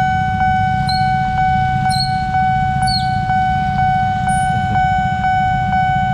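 Railroad crossing warning bell ringing: a steady electronic tone that pulses about twice a second, over the low rumble of waiting traffic. Three short high chirps sound about a second apart in the first few seconds.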